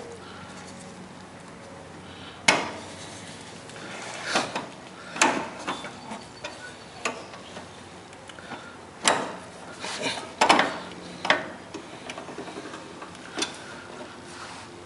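Hand tools clinking and knocking against metal on a lawn tractor's front steering, during the steering bushing replacement: about ten sharp, irregular clicks and taps, the loudest two about 2.5 s and 10.5 s in.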